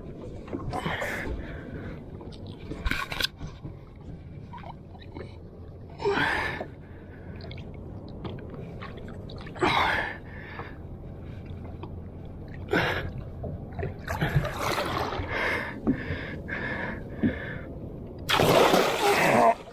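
A large tarpon thrashing at the surface beside the boat: irregular bursts of splashing, the longest and loudest near the end, over a low steady wash of water.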